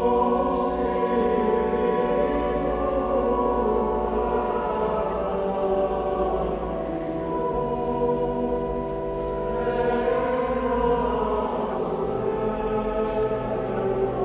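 Men's schola singing Latin Gregorian chant, with long held notes, in a large church.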